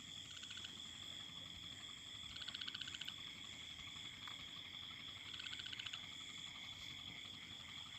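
Faint chorus of calling animals: a steady high-pitched trill throughout, with two short, rapidly pulsing calls, about two and a half and five and a half seconds in.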